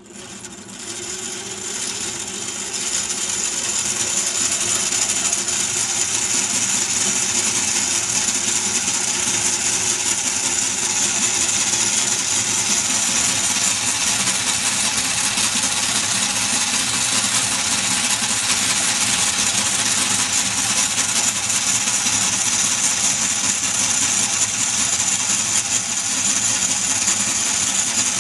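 Merkur metal construction-set model of a single-cylinder engine running, its crankshaft, pushrods and rocker arms clattering densely over a steady high whine from the small electric motor that drives it. The noise builds over the first few seconds, then runs steadily.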